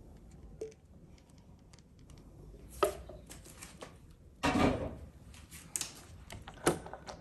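Spoon clinking and scraping against the cooking pot and mould while thick halva is scooped out and spread: a few separate knocks, one ringing about three seconds in, and a short scrape about halfway through.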